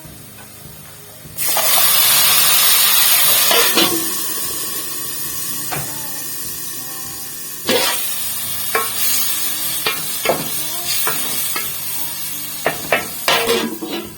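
Githeri and vegetables frying in a pan. A loud sizzle starts suddenly about a second and a half in and eases after a few seconds into a steadier sizzle, while a spoon stirs and knocks against the pan, more often near the end.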